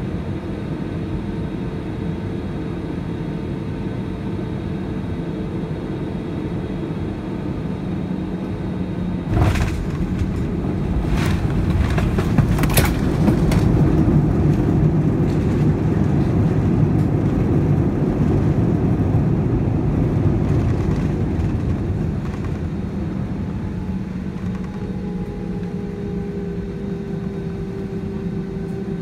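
Cabin noise of an Airbus A320-family jetliner landing, heard from a window seat over the wing. Steady engine and airflow rumble on short final gives way to a sharp thump of touchdown about nine seconds in, followed by a few more knocks. Then comes a louder rush for about ten seconds as the jet decelerates on the runway under reverse thrust and braking, which eases off toward the end.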